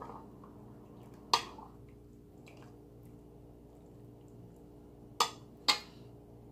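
Stainless steel ladle clinking against the cookware three times, once about a second in and twice close together near the end, as broth is ladled from the pot over a chicken in a bowl, with soft pouring and dripping under a steady low hum.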